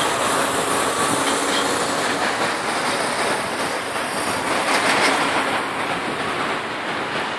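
Steady mechanical din of a container-terminal gantry crane's machinery running as it carries a slung motor yacht, with a few faint thin squealing tones in the noise.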